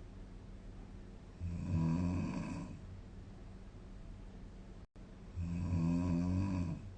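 A young woman snoring in her sleep: two loud, low, pig-like snores about a second and a half long, each on an in-breath, with quiet breathing between them. The uploader puts the snoring down to tiredness and a blocked nose.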